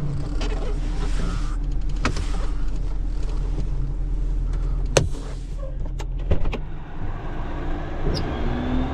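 Vehicle engine running with a steady low hum and a rushing hiss, heard from inside the cab. There are a few sharp clicks or knocks, and the hiss drops away about two-thirds of the way through.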